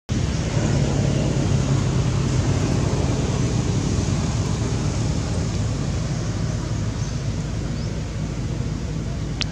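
Steady low rumbling background noise with an even hiss above it.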